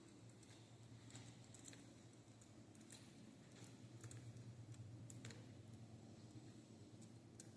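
Near silence: a low steady hum with faint, irregular light clicks scattered through it.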